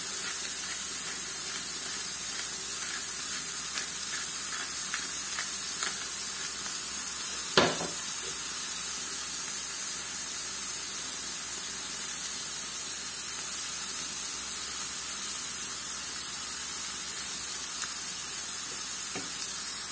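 Beef burger patties sizzling steadily in a hot ridged grill pan, with a single sharp tap about eight seconds in.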